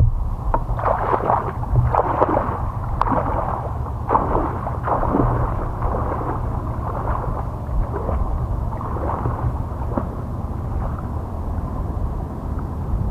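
Water splashing and sloshing as a person wades out through shallow marsh water, about a stride a second, loudest in the first few seconds and fainter as he moves away. A steady low rumble of wind on the microphone runs underneath.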